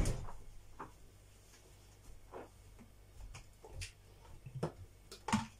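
Refrigerator door thumping shut at the very start, then a handful of faint, scattered clicks and light knocks of kitchen things being handled and set down on the counter.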